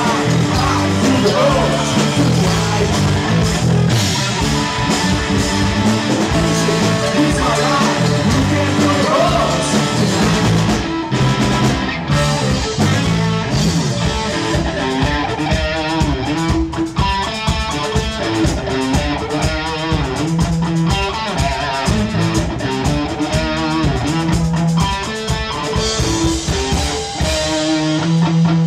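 Rock music with guitar playing over a steady beat, and a singing voice at times.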